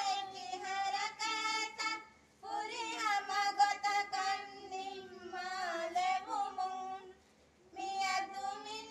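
Women's voices singing together, unaccompanied, in sung phrases with two short breaks, about two seconds in and about seven seconds in.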